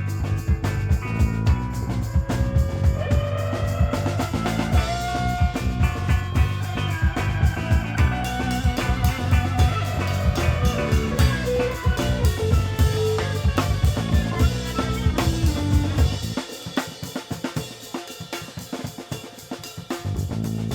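A rock band with drums, bass, guitar, banjo and violin playing an instrumental break live, the drum kit beating steadily under held, sliding melody notes. About four seconds before the end, the bass and kick drum drop out, leaving a quieter, lighter passage until the full band comes back in.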